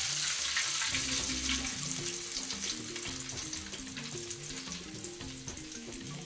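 Fish frying in hot oil in a pot: a steady crackling sizzle, with background music faintly under it.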